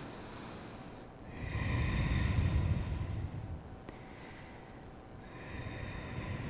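A person breathing deeply and slowly close to a microphone: one long breath about a second in, and another starting near the end.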